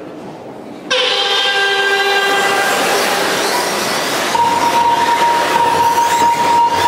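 A pack of radio-controlled racing buggies racing: a loud sound of many overlapping high whines sets in suddenly about a second in. A single steady high tone joins about four seconds in.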